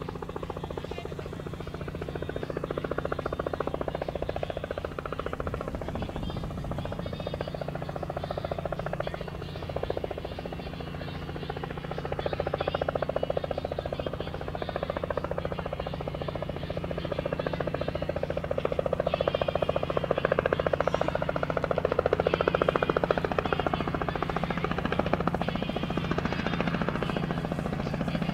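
Robinson R44 helicopter running, its six-cylinder piston engine and two-blade main rotor making a steady drone that grows louder over the second half.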